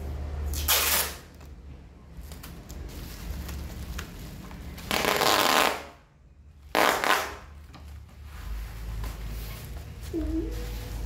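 Brown plastic packing tape pulled off its roll in three loud tearing strips, about a second in and twice between five and seven and a half seconds, with crinkling of the plastic-wrapped parcel in between.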